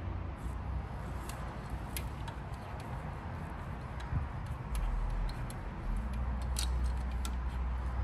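Scattered light clicks and ticks from hands handling small tools, over a steady low rumble that grows louder about five seconds in.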